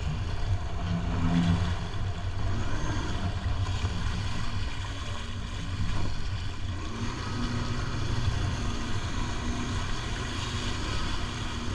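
Jet ski engine running on the water, with steady low noise under it; an engine tone comes and goes in the second half.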